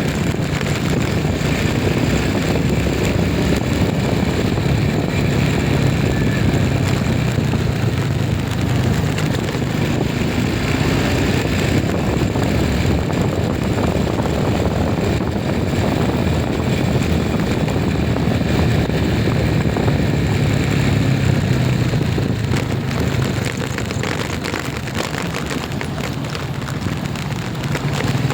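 A moving vehicle running steadily: a low engine hum with road and wind noise, easing slightly a few seconds before the end.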